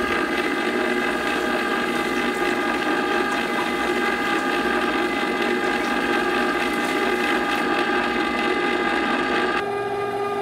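Electric ice cream maker running, its motor turning the freezer bowl against the dasher to churn chocolate ice cream mixture: a steady motor whine over a rattling churn. Near the end the hiss of the churning drops a little while the motor keeps running.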